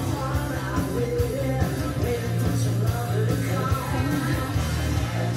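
Rock music played from a CD on a Yamaha DVD player through a Pioneer hi-fi amplifier and loudspeakers, picked up in the room.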